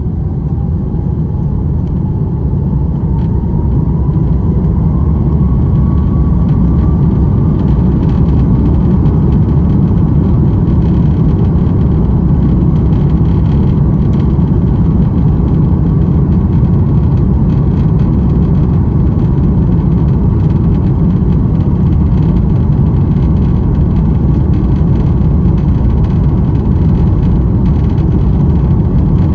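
Airbus A330-300 jet engines spooling up to takeoff thrust: a whine rising in pitch over the first several seconds as the noise builds, then a loud steady rumble for the takeoff roll.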